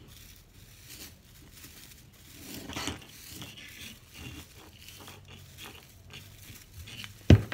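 Crinkling and rustling of a pink tinsel artificial Christmas tree's branches being handled, with a swell of crackle about three seconds in. A single sharp knock near the end is the loudest sound.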